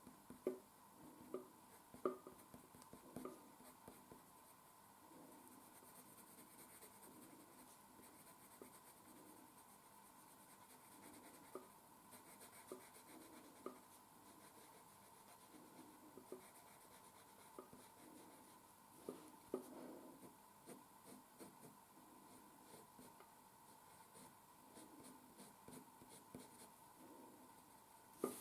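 Coloured pencil scratching faintly on paper in short, irregular flicking strokes, with a few sharper ticks among them.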